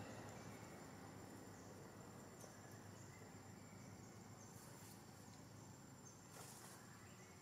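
Near silence: faint forest ambience with a thin, steady, high insect whine and soft, high chirps repeating roughly once a second, plus two brief faint hisses near the end.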